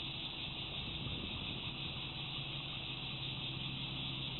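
Steady high-pitched insect chorus, with a steady low hum underneath.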